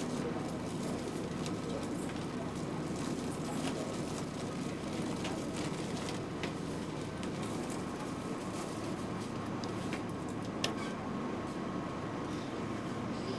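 Steady background noise inside a railway passenger coach: an even rumble with a faint steady hum and a few light clicks.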